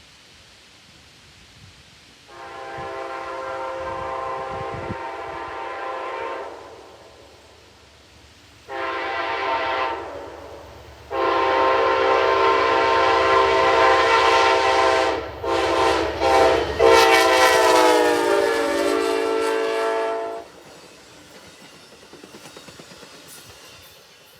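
Amtrak P42DC locomotive 94's air horn played in a horn show: a blast of about four seconds, a shorter blast, then a long blast of about nine seconds broken by quick stabs, its pitch falling near the end. The train's low rumble runs underneath and fades after the horn stops.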